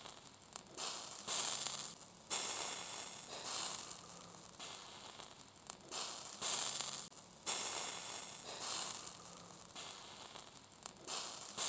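Fat dripping from grilling sausages onto the hot grill: each drop flares into a sudden loud hiss that dies away over a second or so, about eight times, over a steady background sizzle.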